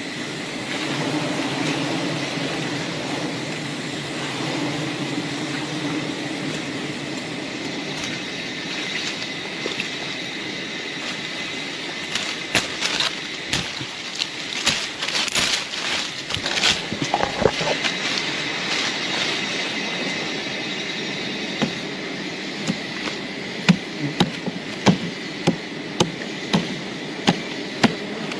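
Steady low buzzing drone of a swarm of wild bees around the hive. A few sharp knocks come through the middle, and near the end a run of regular knocks, somewhat under two a second.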